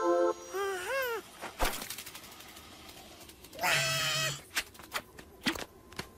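Cartoon character vocal effects: a few quick squeaky cries that bend up and down in pitch from the animated lizard, a sharp click, then a longer bleat-like cry about three and a half seconds in, followed by light quick taps.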